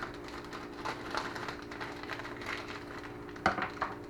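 Quiet food-handling noises on a kitchen counter: faint rustling and crackling, with two sharp knocks a little after three seconds in, over a steady hum.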